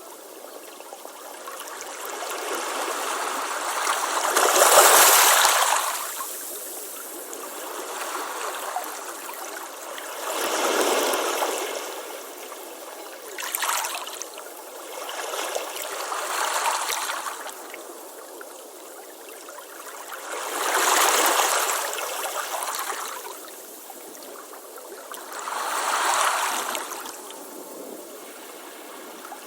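Ocean waves washing onto a beach. The surf swells and ebbs in about six surges, the loudest about five seconds in.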